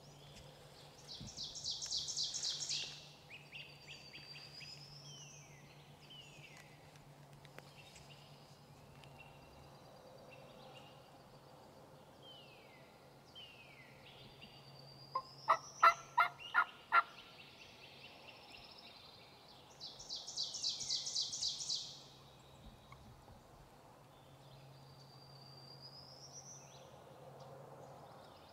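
Wild turkey gobbler gobbling once, a loud quick run of about seven rattling notes about halfway through. Songbirds sing around it: two high, fast trills, one near the start and one later, and scattered short chirps.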